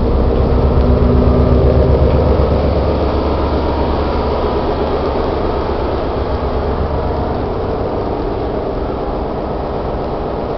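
Tugboat's engine running underway, a steady low rumble with a fast pulsing beat, heard through the boat's interior. It eases slightly in loudness toward the end.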